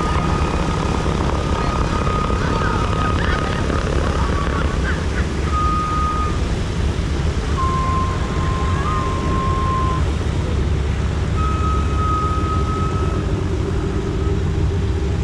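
B-17 Flying Fortress's Wright R-1820 Cyclone radial engines running, a steady low drone, with a thin steady high tone that comes and goes several times.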